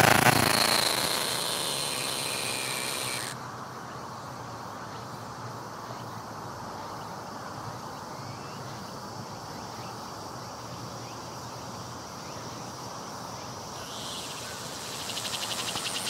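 Cicada song fading and stopping about three seconds in, followed by a steady low background hum, then cicada buzzing starting up again and growing louder near the end.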